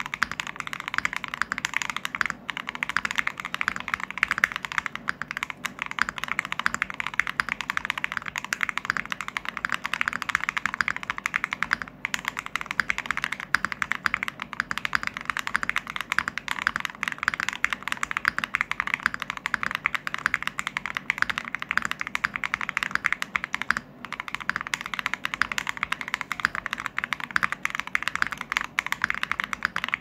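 Fast, continuous typing on a dyz65 mechanical keyboard with lubed KTT Sweet Orange linear switches, in a foamless acrylic case with a top-mounted gravoply plate: a dense stream of key clacks, with brief pauses at about 12 and 24 seconds.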